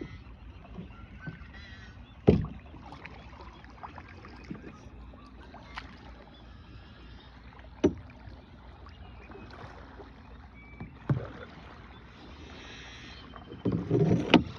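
Small boat on the water with sharp wooden knocks, three of them several seconds apart, typical of oars or gear bumping the hull, and a short louder splashing rustle near the end.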